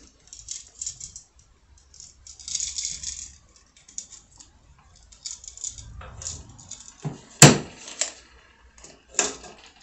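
Light clinking and rattling of wires and a toggle switch being handled and connected at a metal electrical box, with one sharp click about seven seconds in.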